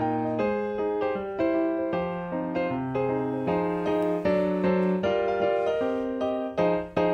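Background music played on a keyboard, a light melody of notes changing about every half second.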